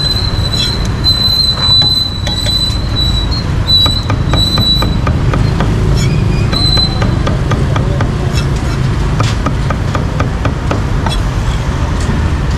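Cleaver chopping cooked meat on a wooden chopping block: a run of quick, uneven knocks, busiest in the second half. Under them is a loud, steady low rumble, and a thin high whine sounds through the first few seconds.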